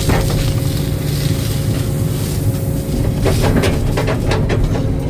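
Excavator's diesel engine and hydraulics running steadily with a constant whine, and a quick run of clanks and scrapes from about three to four and a half seconds in.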